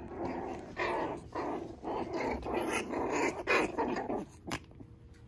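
Six-week-old Maltese–Shih Tzu (malshi) puppy play-growling in a string of short rough bouts, stopping about four seconds in, followed by a single sharp click.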